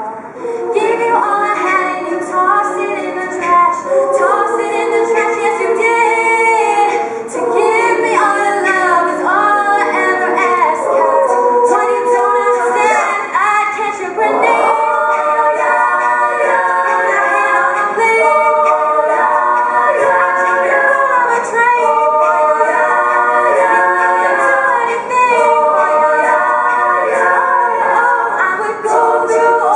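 Teenage girls' a cappella group singing, a lead voice over several voices holding harmony parts, with no instruments.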